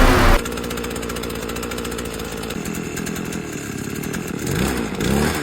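Stihl FS 220 brushcutter's two-stroke engine idling steadily on its newly fitted cylinder and piston, then blipped up in short revs near the end.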